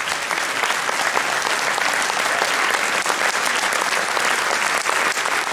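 Concert audience applauding steadily after a wind band piece ends, a dense patter of many hands clapping.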